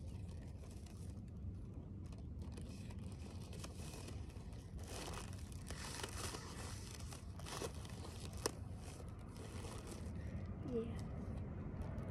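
Soft crinkling and rustling of a plastic packet being handled and poked with a plain needle that fails to pop it, with one sharp tick about eight seconds in, over a low steady background rumble.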